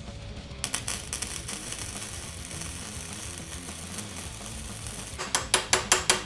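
Mastercraft flux-core wire welder's arc crackling steadily for about four seconds as a bead is run on a steel exhaust pipe. Near the end comes a quick run of sharp metallic taps.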